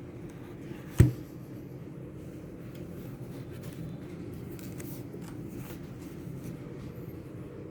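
Light handling and rustling noise with one sharp knock about a second in, over a steady low hum.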